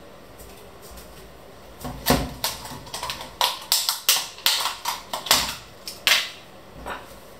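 Kitchen utensils and cookware clattering as they are handled: about a dozen sharp knocks and clinks in quick, uneven succession, starting about two seconds in and stopping a second before the end.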